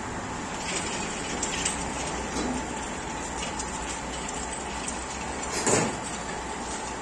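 Steady workshop hum with a few light metal clicks as steel is handled on a manual pipe-bending table, and one louder metal clank about five and a half seconds in.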